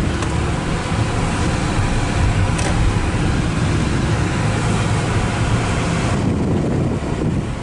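Road noise inside a moving car with a window open: wind rushing past and a low rumble of tyres and engine. The hiss eases about six seconds in.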